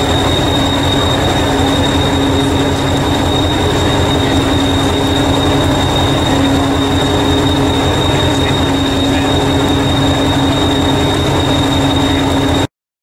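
Diesel engine of a stationary Class 201 'Hastings' diesel-electric multiple unit idling: a steady low throb with a constant hum and a thin high whine over it. The sound stops abruptly near the end.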